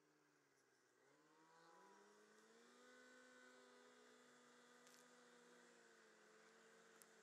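Faint snowmobile engine running, its pitch rising about a second in as it speeds up, then holding steady.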